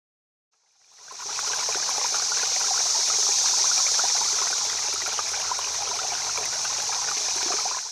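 Steady trickling, rushing sound of running water that fades in about a second in and fades out at the end.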